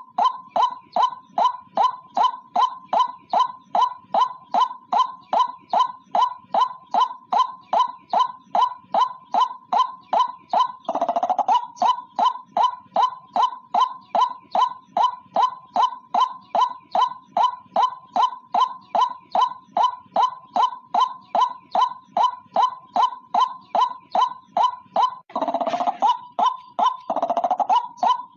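White-breasted waterhen (ruak-ruak) call played as a trapping lure: a fast, even series of short repeated notes, about three a second, with longer, fuller calls breaking in about a third of the way in and twice near the end.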